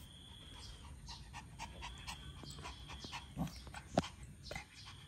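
Small dog panting in quick, short breaths, with a single sharp click about four seconds in.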